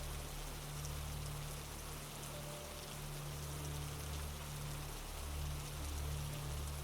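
Steady rain falling: an even hiss with scattered drop ticks, over a steady low hum.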